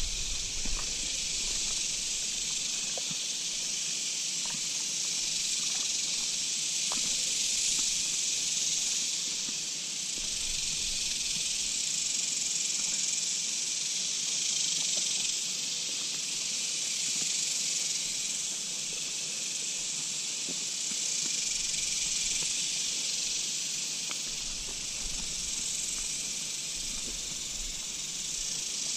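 Steady chorus of insects: a high, continuous buzzing hiss that slowly swells and fades.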